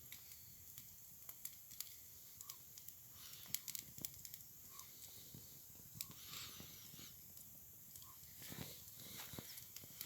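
Campfire burning quietly, with faint scattered crackles and sharp pops at irregular intervals.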